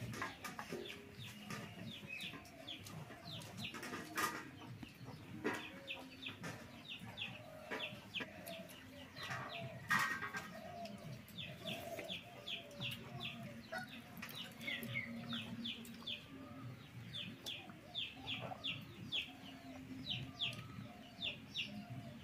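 Chickens clucking, mixed with runs of quick, short, high chirps and a few sharp clicks.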